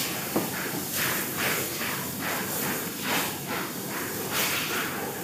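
Soft, irregular rustling and scuffing of hands handling a quilted nylon down jacket on a table, with one short knock about half a second in.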